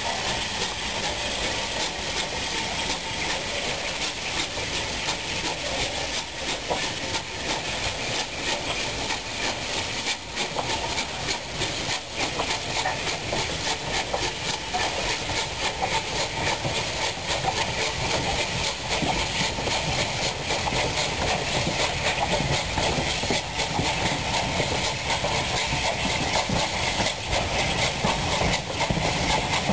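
Unrebuilt Bulleid West Country class Pacific 34007 Wadebridge working steam as it passes with a train of coaches: a steady chuffing and hissing of the exhaust, mixed with the coaches' wheels clicking over rail joints, growing slightly louder towards the end.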